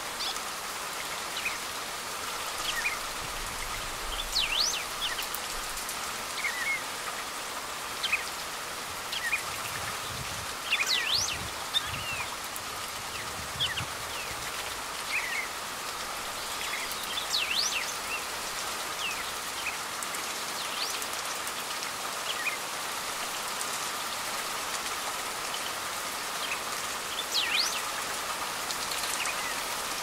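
Steady rain falling on leaves and branches, with short, sharp bird chirps scattered through it.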